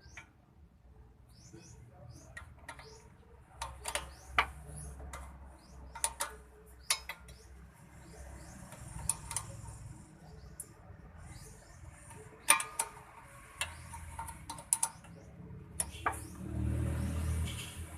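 Metal hand tools clinking and knocking against brake parts, about a dozen sharp clicks at irregular intervals, with a louder noise lasting about a second and a half near the end. Birds chirp faintly in the background.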